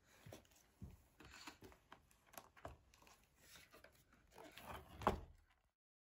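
Faint handling of cardboard board books: pages and covers flipping and rustling, with a string of light knocks as the books are moved about, the loudest about five seconds in. The sound cuts off suddenly near the end.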